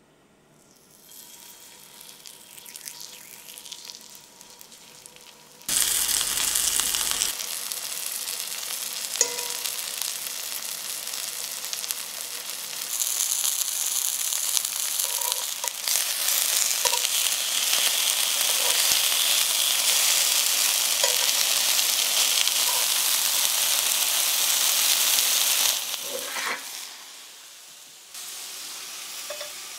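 Flour-dusted chicken breast cutlets sizzling as they fry in hot rapeseed oil in a cast-iron skillet. The sizzle builds as the pieces go in, holds loud and steady, then drops away sharply near the end.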